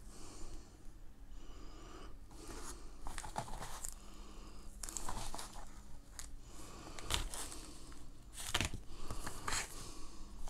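Handling noise of cables and plastic adapters being picked up, turned over and set down on a table: scattered rustling, scraping and light clicks, with a few sharper knocks in the second half.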